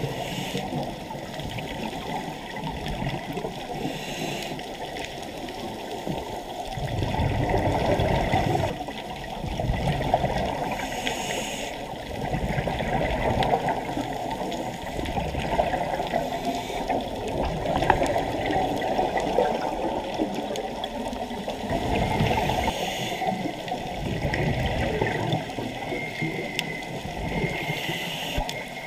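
Muffled underwater noise heard through a camera housing: scuba exhaust bubbles gurgling and rushing in surges every few seconds over a steady water rush.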